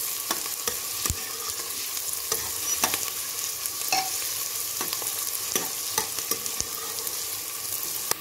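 Chopped onions and whole spices sizzling in hot mustard oil in a pressure cooker, being fried, while a metal ladle stirs them with scattered clicks and scrapes against the pot.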